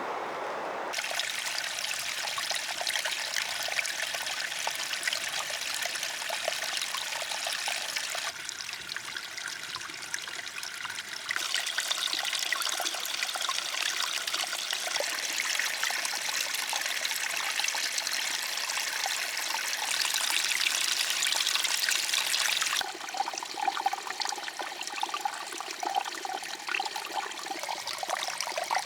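Running water trickling steadily, like a small stream. Its loudness jumps abruptly several times.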